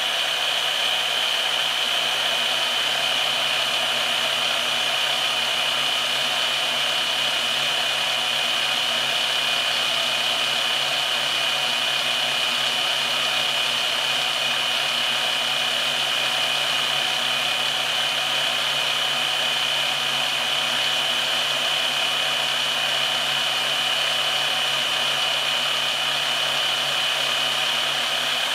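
Bauer portable band saw, mounted upright in a stand, running and cutting flat steel bar stock to shape canoe-rack hooks: a steady motor-and-blade whine with a high ringing tone.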